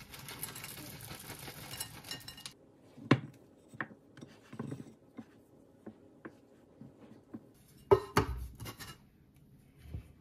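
White chocolate chips rustling out of a plastic bag into a bowl of cocoa cookie dough for the first couple of seconds. Then a spatula folds the chips into the stiff dough, knocking against the mixing bowl again and again, loudest twice in quick succession about eight seconds in.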